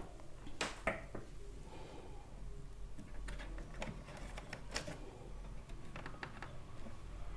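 Irregular clicks and light taps of hands working with wires and small tools on a TV's circuit board, over a low steady hum.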